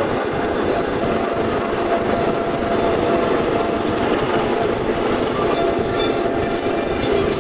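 Tomorrowland Speedway ride car's small gasoline engine running steadily, a constant rumble with a faint steady whine.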